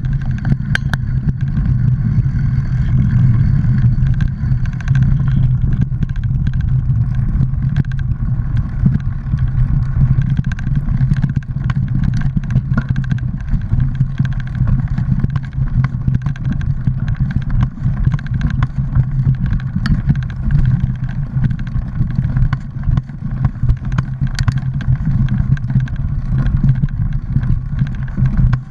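Mountain bike riding over a leaf-covered dirt trail: a steady low rumble of wind and rolling noise on the bike-mounted action camera's microphone, with frequent small clicks and rattles from bumps in the trail.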